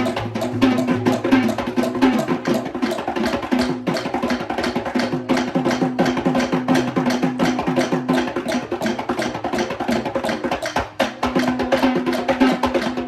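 Sri Lankan traditional drum ensemble playing a fast, dense rhythm of rapid, sharp hand and stick strokes.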